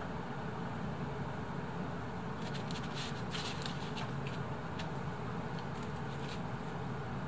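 Steady low background hum with a cluster of faint light clicks and rustles from a metal spatula laying egg and cheese onto toast on parchment paper, between about two and a half and six and a half seconds in.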